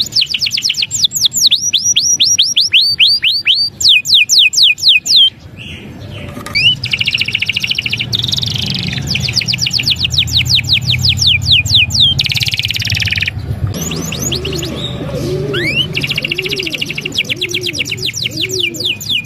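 Domestic canary singing hard: long, fast trills of repeated high sweeping notes, with brief pauses about five and twelve seconds in.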